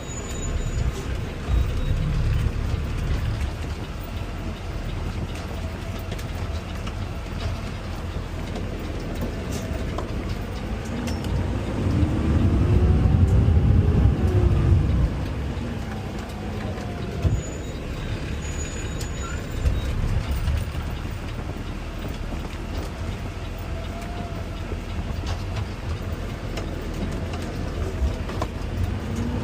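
Garbage truck's diesel engine running, swelling with a rev that rises and falls about eleven to fifteen seconds in, then settling back to a steady rumble.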